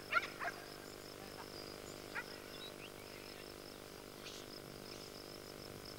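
Faint outdoor ambience: a steady high insect trill, with a few short chirps near the start and one around two seconds in.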